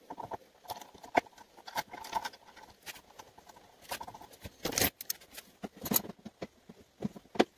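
Irregular small clicks, taps and scraping of metal parts and wires being handled while charging coils are fitted by hand onto a small engine's crankcase, with a couple of sharper knocks about five and six seconds in.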